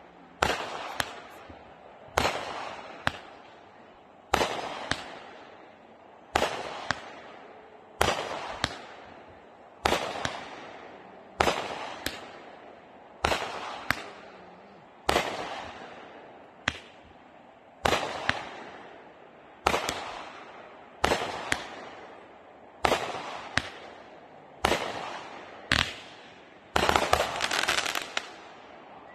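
Consumer firework cake firing shot after shot, about one every two seconds. Each shot is a sharp launch report, often followed by a smaller pop and a crackling that dies away. A denser, louder volley comes near the end.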